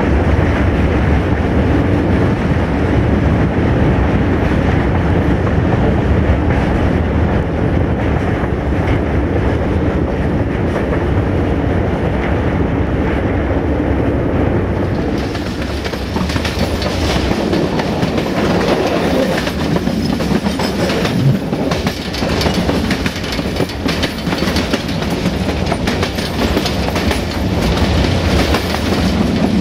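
A freight train heard from on board, hauled by a CFR LDH1250 diesel-hydraulic locomotive: a steady engine and running rumble, with the wheels clicking over rail joints. About halfway through, the sound turns brighter and hissier as the wheel-on-rail noise rises.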